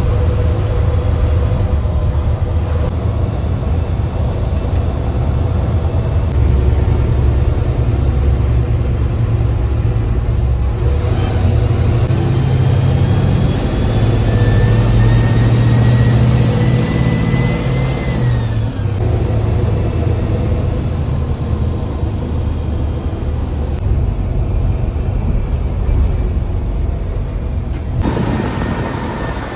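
Mercedes-Benz bus diesel engine pulling hard, with a steady deep rumble. Near the middle, the turbocharger whistle rises in pitch for several seconds and then drops away suddenly. A shorter whistle falls away near the end.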